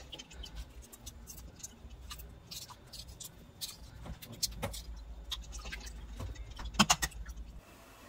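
Boiled eggs being cracked and peeled in a stainless steel bowl of cold water: a run of sharp shell crackles and clicks, loudest in a quick cluster about seven seconds in.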